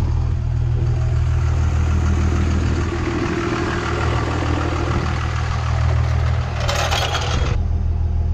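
24-valve Cummins diesel engine of a school bus idling steadily, with a connector pipe of its exhaust missing. A short hiss comes near the end.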